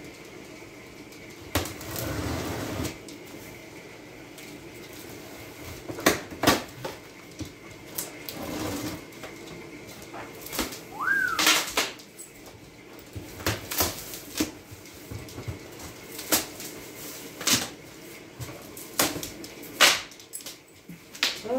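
A large cardboard box being opened: a knife slitting the packing tape and the flaps pulled back, with scattered sharp clicks, scrapes and rustles of cardboard. A brief squeak sounds about halfway through.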